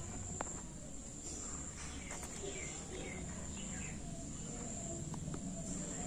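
Steady high chirring of crickets, with a few faint clicks as an Alexandrine parakeet's beak picks at seeds in a plastic bowl.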